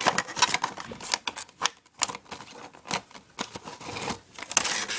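Plastic packaging tray being worked out of a small model's box: irregular sharp clicks, crackles and rustles, busiest near the end.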